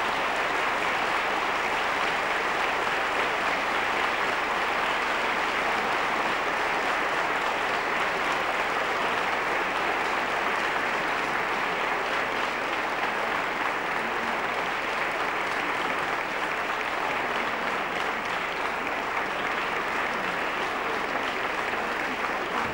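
Audience applauding, a dense, even clapping that holds at a steady level.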